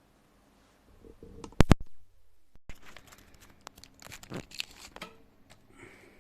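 Close handling noise: two sharp clicks about a second and a half in, then a few seconds of rustling and crackling with scattered clicks.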